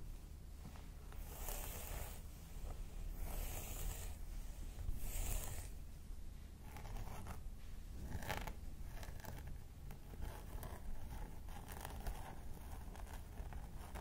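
Fingers sweeping, lifting and parting long hair: a run of rustling swishes, several of them louder and hissier than the rest.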